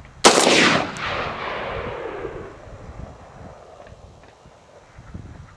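A single shot from a Bushmaster XM15 AR-15 rifle about a quarter second in, its report followed by a long echo that dies away over about two seconds.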